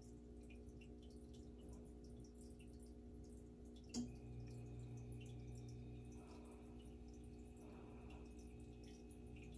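Near silence: steady room hum with scattered faint ticks and a single soft click about four seconds in.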